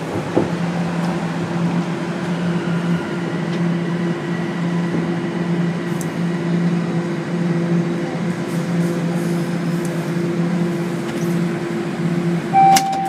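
Interior running noise of a Toronto Rocket subway car as it pulls into a station: a steady hum with rail and ventilation noise. A short beep near the end.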